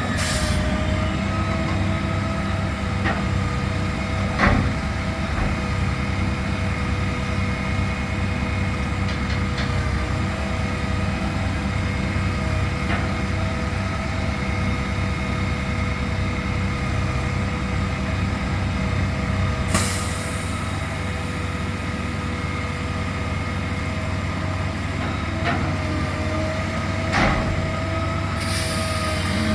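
A heavy diesel engine on tree-removal machinery runs steadily with a throbbing rumble and a steady whine. A few short hisses and a couple of sharp knocks break in.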